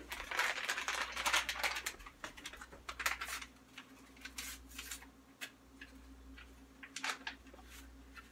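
Packaging being handled: crinkling and rustling for about the first two seconds, then scattered light clicks and taps, with a faint steady hum underneath.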